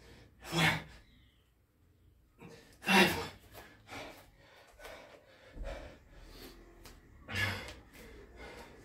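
A man panting hard, out of breath from a high-rep burpee, kettlebell-thruster and pushup workout. Three loud gasping breaths come about half a second, three seconds and seven and a half seconds in, with quieter breaths between.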